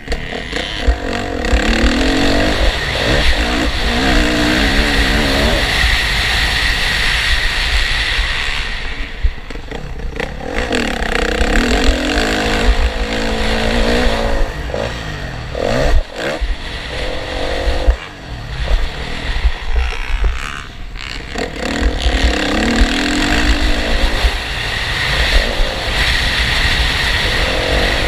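Motocross dirt bike engines revving, their pitch rising and falling in several waves as bikes go by, with short dips between.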